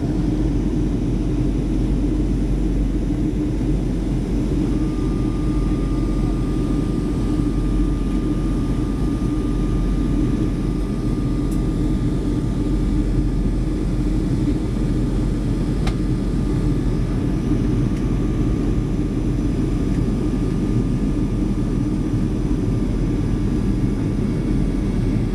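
Cabin noise inside a Boeing 737 on descent: a steady low rumble of the jet engines and rushing air. A faint, steady high tone joins in about five seconds in and continues.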